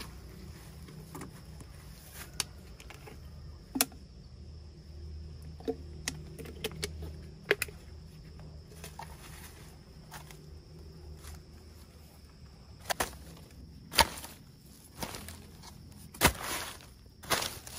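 Scattered sharp clicks and knocks, with several short bursts of rustling in the last few seconds, over a steady faint high-pitched drone.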